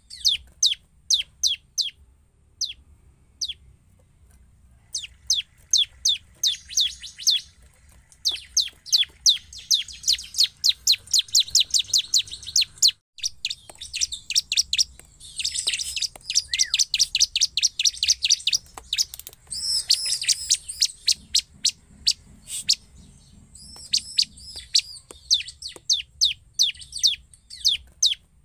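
Bar-winged prinia (ciblek) in full song: long runs of sharp, high, downward-sweeping chirps, several a second, broken by short pauses and growing denser and faster in places.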